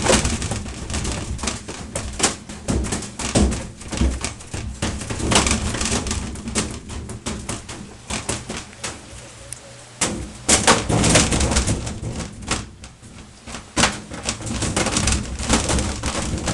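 Washing machine shaking violently and jumping about, a rapid irregular clatter of knocks and bangs over a low rumble. The rumble grows heavier about two-thirds of the way through.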